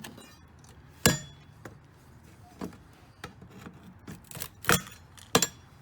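Sharp metallic knocks and clinks with some scraping as the opened payphone's metal insides and coin box are handled. The loudest is a ringing knock about a second in, with more knocks, the strongest near the end.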